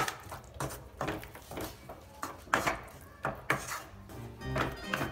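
Wooden spatula scraping and knocking against a frying pan in irregular strokes while stirring a thick masala gravy. Plucked-string background music comes in near the end.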